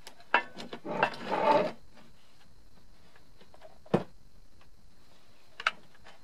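Hand tools and metal parts of a portable generator's alternator end being worked during a teardown. A sharp knock and about a second of scraping and rubbing come near the start, then two more single knocks follow about two seconds apart.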